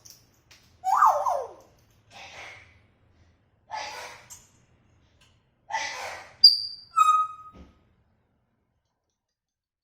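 African grey parrot vocalizing: a falling whistled call, several short breathy, raspy calls, then two brief pure whistles, one high and one lower, about two-thirds of the way in.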